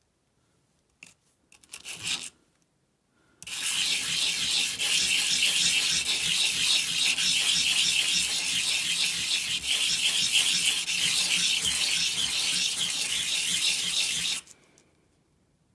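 A brass 9 mm shell casing scraped by hand on sandpaper: a few short scrapes, then about ten seconds of continuous fast back-and-forth sanding that stops shortly before the end. The cut end of the shortened casing is being sanded smooth.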